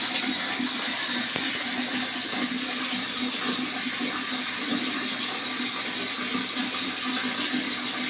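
Water being poured from a mug into the open end of a washing machine's plastic drain hose to rinse it out: a steady, even pouring and splashing.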